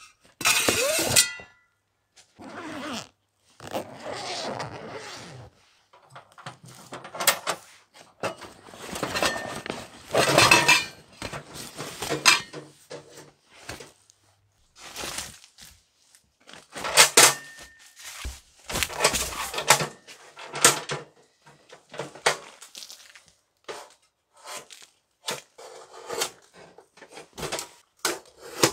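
Stainless steel camp wood stove and its pipe sections being handled and unpacked: a string of short, irregular metal clinks, clatters and scrapes.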